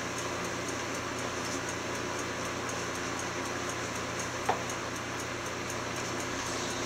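Steady room noise, an even hiss over a low hum, with one short click about four and a half seconds in.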